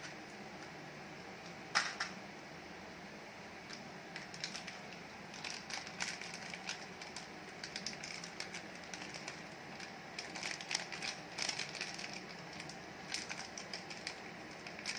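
A single sharp click near two seconds in as the snap lid of a plastic Tic Tac box flips open. Then plastic candy wrappers crinkle and tear open in an irregular run of crackles, over a faint steady hiss.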